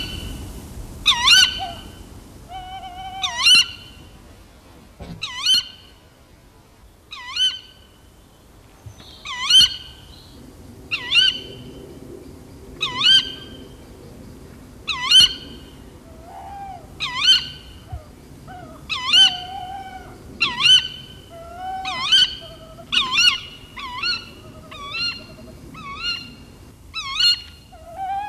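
Tawny owls giving repeated sharp 'kewick' alarm calls, about one every one to two seconds and coming faster toward the end. Shorter, lower calls sound between many of them in the second half.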